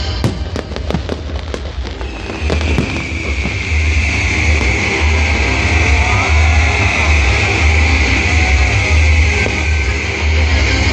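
Fireworks bursting and crackling over loud rock music with a pulsing bass. Rapid bangs come in the first two seconds, then a steady high hiss runs over the music.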